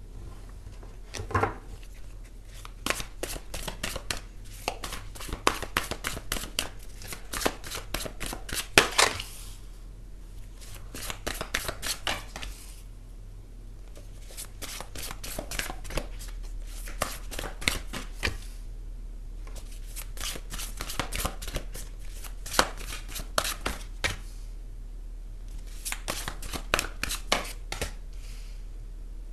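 Tarot deck being shuffled by hand: spells of rapid papery clicks, the busiest in the first ten seconds, then shorter spells broken by pauses, over a low steady hum.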